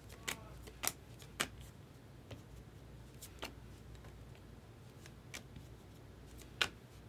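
Baseball trading cards being flipped through a stack by hand: light, irregular clicks and slides as each card is moved off the front, the loudest snap near the end.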